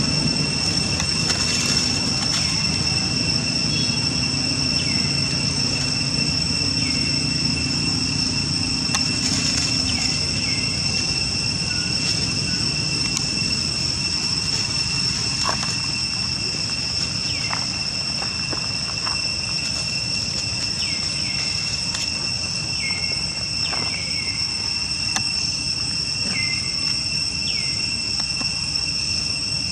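Insects droning outdoors in a steady, unbroken high-pitched tone, with short falling chirps every second or two.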